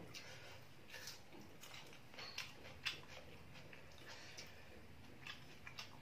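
Faint, irregular clicks and taps of fingers mixing and scooping rice against a steel plate and a steel pot during hand eating, over a quiet room background.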